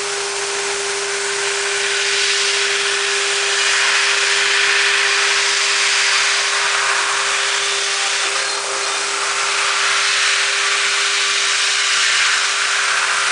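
Deckel Maho CNC milling machine running in high-speed milling: a steady high spindle whine under a loud, even hiss.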